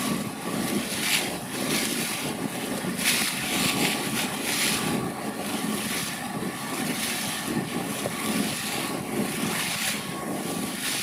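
Motorized outrigger boat under way: its engine running steadily beneath the rush and splash of water along the hull, with wind gusting on the microphone.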